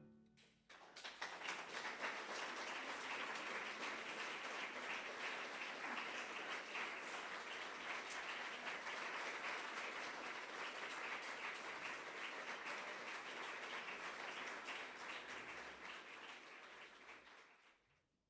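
Audience applauding: many hands clapping, starting about a second in, holding steady, then fading away near the end.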